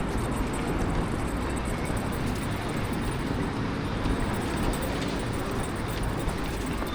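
Steady low rumble and noise of a vehicle in motion, with no breaks or distinct events.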